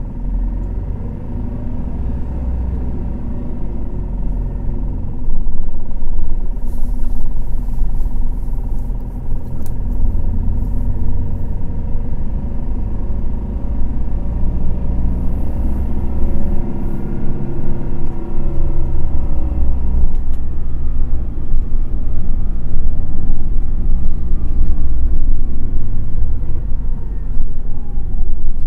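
Toei city bus under way, heard from inside the cabin: the diesel engine revs climb and ease off several times over a heavy low road rumble. There are scattered clicks and rattles a few seconds in and again around the middle.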